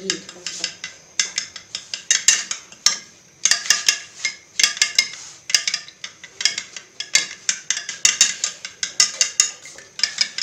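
A metal spoon beating raw eggs in a ceramic bowl, clinking fast against the bowl's sides in quick bursts with short pauses between them.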